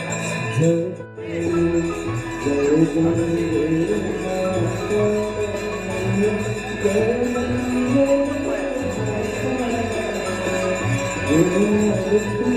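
Hindu devotional aarti song: a voice sings a wavering melody over steady ringing tones and jingling percussion. There is a brief dip in the sound about a second in before the singing comes in.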